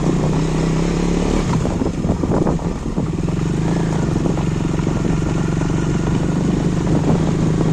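Motorcycle engine running steadily while being ridden, with some irregular clatter about one and a half to three seconds in.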